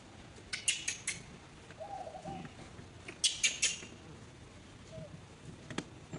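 Birds chirping: two quick clusters of three or four sharp high chirps, about half a second in and again about three seconds in, with a short low wavering coo-like call between them.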